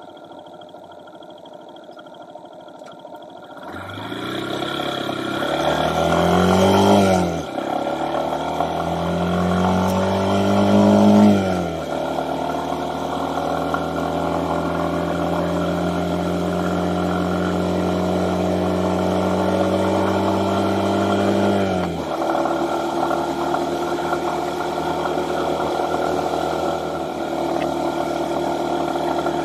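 Honda FTR223's air-cooled single-cylinder four-stroke engine running quietly, then pulling away about four seconds in. The revs climb and drop twice as the rider shifts up through the first gears, then the engine runs at a steady cruise. About twenty-two seconds in the revs drop once more, then hold steady again.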